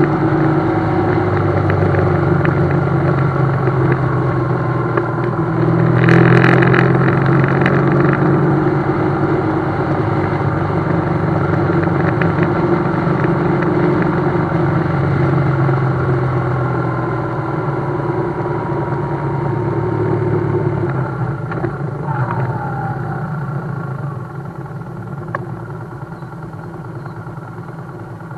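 BMW GS motorcycle engine running at steady speed under way, with wind noise; a brief louder rush about six seconds in, and the engine note fades and quietens over the last few seconds.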